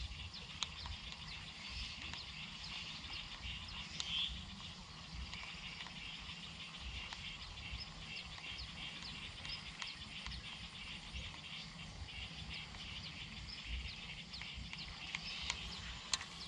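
A steady, high-pitched chorus of chirping wildlife, with scattered short clicks and a low rumble underneath.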